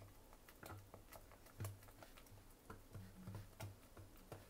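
Metal ladle beating thick fermented dosa batter in a bowl: faint, irregular clicks and soft wet thuds as the ladle strikes and churns the batter.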